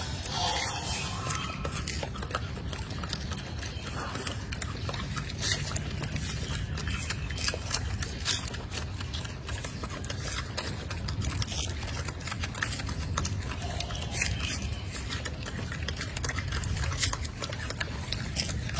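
Golden snub-nosed monkeys eating greens and fruit: a stream of small crunching and smacking clicks over a steady low rumble.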